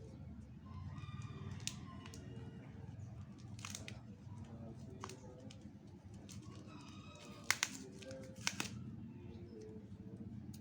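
Packaging and small plastic parts being handled, with a few sharp clicks and crinkles. The loudest are two close clicks about seven and a half seconds in and another about a second later.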